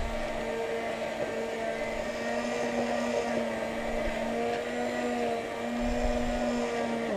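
Electric blender motor running steadily as it purees watermelon pieces with mint, ginger, sugar and strawberry crush into a smoothie, then switched off at the very end, its pitch falling as it winds down.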